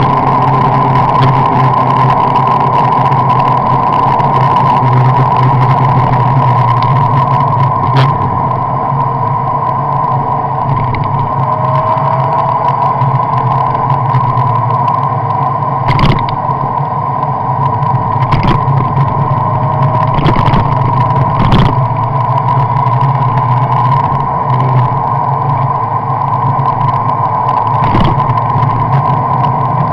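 Steady running drone of a moving road vehicle, engine hum and road noise, heard from the vehicle carrying the camera. Several short sharp knocks break through it, a few of them close together in the second half.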